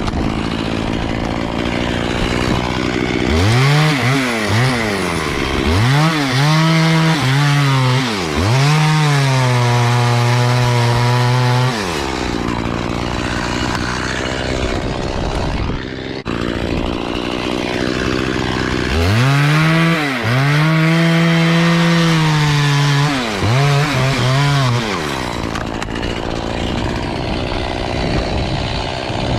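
Two-stroke chainsaw revved in several throttle bursts, settling into a steady cut through wood with its pitch pulled down under load. Between the bursts it drops back to a rough low idle.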